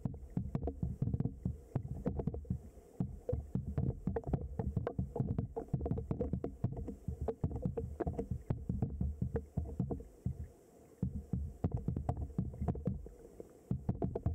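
Muffled underwater sound of a flowing river: a continuous low rumble of moving water with many small clicks and knocks. It eases briefly about ten seconds in and again near the end.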